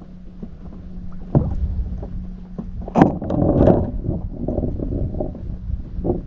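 Handling noise in a plastic kayak while a small fish is unhooked by hand: a sharp knock about a second and a half in, a louder knock about three seconds in, then a few seconds of rustling and bumping. A steady low hum and low rumble run underneath.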